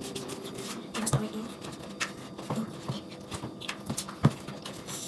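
Cake batter being stirred in a plastic mixing bowl: irregular scraping and light knocks of the utensil against the bowl, with one sharper knock about four seconds in.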